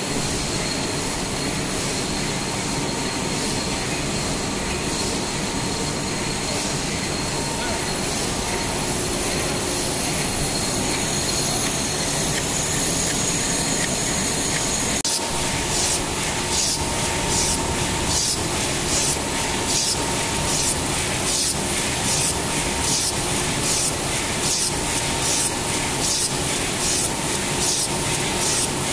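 Egg-tray labelling machine running: a loud, steady mechanical clatter with a thin motor whine. About halfway through, a regular hissing pulse joins in, about twice a second, as the machine cycles.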